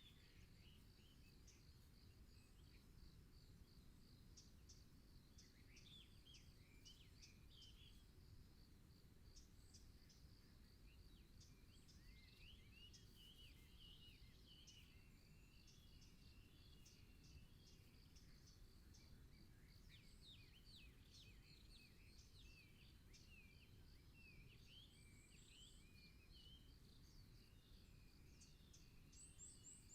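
Faint forest ambience: scattered small-bird chirps and twitters over a steady high insect trill, with a low background rumble.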